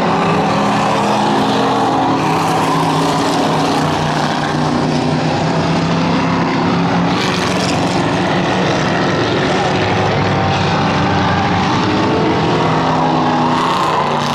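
Cruiser-class race car engine running at speed around the oval track, a steady drone whose pitch dips slightly and climbs again as it laps.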